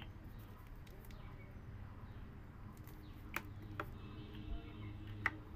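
Wood fire in a mud stove under an iron wok of heating oil: a steady low background hum with a few sharp crackles, the loudest near the end.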